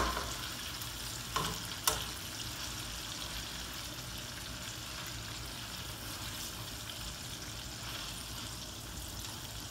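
Chicken pieces sizzling steadily as they brown in hot oil in a frying pan, with two light clicks of metal tongs against the pan about one and a half and two seconds in as the pieces are turned.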